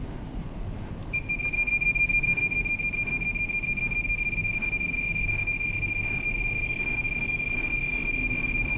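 Furuno NX-700 NAVTEX receiver sounding a steady high-pitched electronic tone during its receive self-test. The tone starts about a second in and holds at one pitch.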